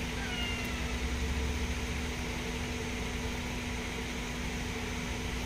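Steady mechanical hum and hiss of outdoor background noise, with a low rumble that swells briefly about a second in. A faint short falling call sounds about half a second in.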